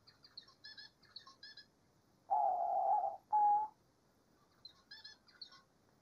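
Diamond dove cooing: one long coo a little over two seconds in, then a shorter second coo. Small birds chirp in quick high notes at the start and again near the end.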